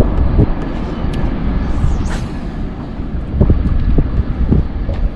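Wind blowing across the microphone: a low rumble that rises and falls in gusts.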